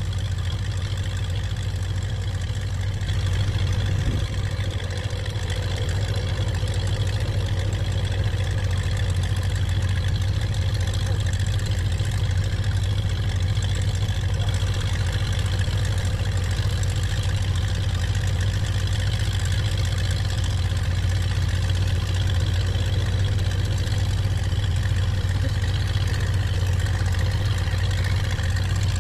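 A steady, low engine-like hum, even and unchanging throughout.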